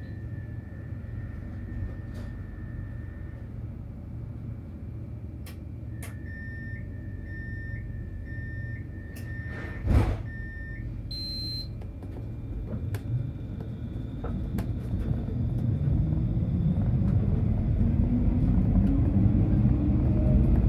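Tram in service: a steady low rumble, then a run of short high beeps about two a second with a sharp thud near the middle. After that, the whine of the traction motors rises steadily and the sound grows louder as the tram speeds up.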